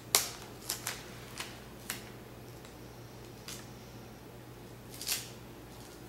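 Clear tape being handled and laid onto a foam wing: a handful of short, sharp crackles of tape and hands on foam, the loudest just after the start, several more in the first two seconds and a longer one about five seconds in.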